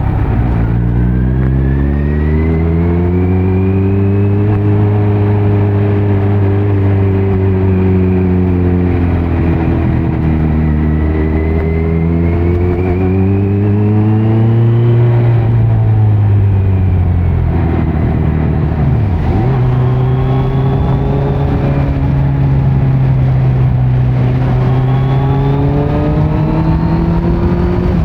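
2018 Kawasaki Z900's inline-four engine through a Leo Vince muffler with no dB killer, under way with the revs rising and falling. The pitch climbs over the first few seconds and holds, drops about ten seconds in, and climbs again. It dips sharply and briefly near nineteen seconds in, then rises again near the end.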